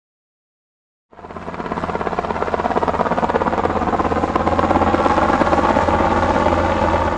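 Helicopter rotor blades chopping rapidly over a steady engine hum, coming in about a second in and swelling to a steady level.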